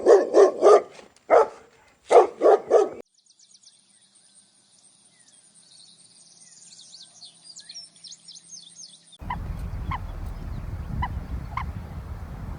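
Loud, rapidly repeated animal calls for about three seconds, followed by several seconds of faint, high bird chirping. About nine seconds in, it cuts to a steady low rumble of outdoor noise with a few faint clicks.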